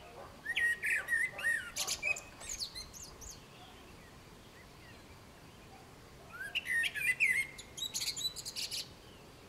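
Male common blackbird singing two phrases a few seconds apart. Each is a low, fluting warble followed by a high, squeaky twitter.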